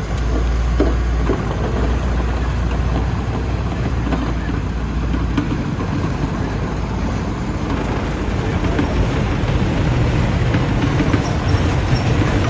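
Heavy earthmoving machinery running: a diesel engine with a deep hum that drops away about five seconds in, leaving a steady rumble with a few knocks.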